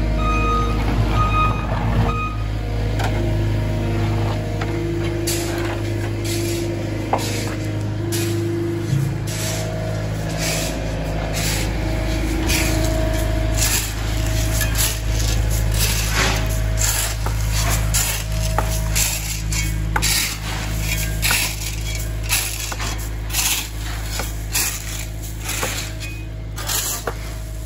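An engine runs steadily as a low hum, with many irregular scrapes and crunches of rakes and shovels working crushed-stone gravel, thickest from about five seconds in.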